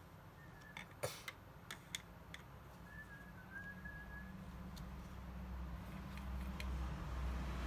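A few light clicks and taps, the loudest about a second in, with faint high chirps. A low rumble of a road vehicle builds steadily over the second half.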